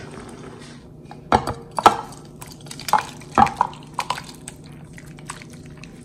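A cooking utensil knocking and scraping against a pan and bowl as a saucy taucho stir-fry is scooped into a bowl, with five or six sharp clinks between about one and four seconds in.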